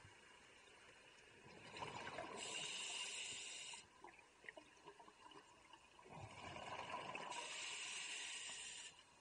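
Scuba diver breathing underwater through a regulator, two breaths, each a gurgle of exhaled bubbles followed by the steady hiss of the demand valve.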